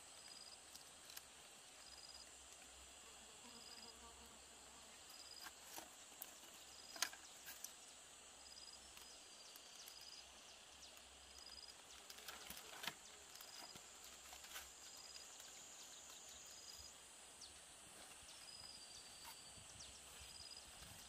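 Insects calling outdoors: a steady high-pitched drone with a short chirp repeating a little more than once a second. Scattered faint clicks and small knocks are heard, the sharpest about a third and again about two thirds of the way through.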